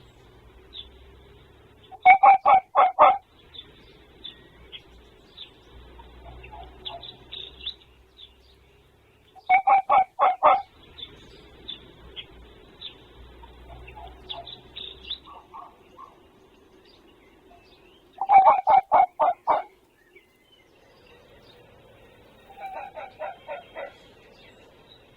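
Dog red fox barking in quick runs of four or five hoarse barks, three loud bouts several seconds apart, with a fainter fox answering in similar runs between them. The barking is typical of a territorial call by a male fox.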